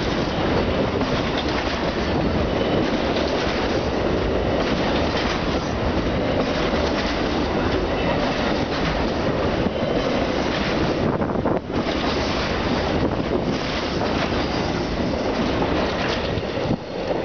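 Amtrak Auto Train autorack cars rolling past close by: a loud, steady rush of steel wheels on rail, scattered with faint clicks, that briefly drops about eleven and a half seconds in.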